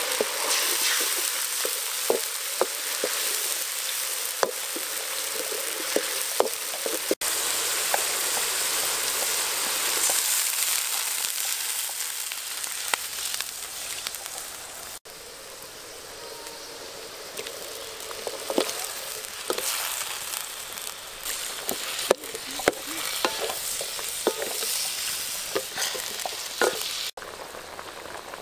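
Red spice paste frying in oil in a steel wok: a steady sizzle with scattered sharp pops and crackles. The sizzle drops quieter about halfway through.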